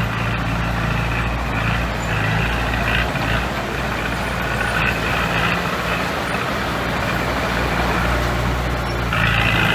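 Heavy diesel engine of construction equipment running steadily under load, with a higher-pitched whine that comes and goes and is strongest near the end.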